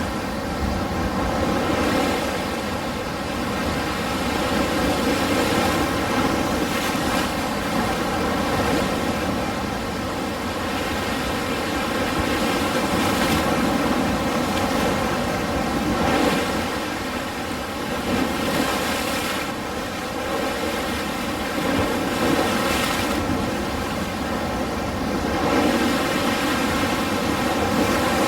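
Ocean surf: a continuous wash of breaking waves that swells and eases every few seconds.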